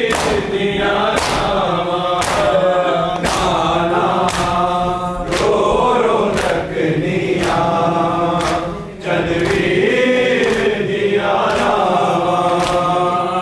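Men chanting a noha (Shia lament) together in unison, with the sharp slap of hands beating bare chests (matam) about once a second in time with the chant.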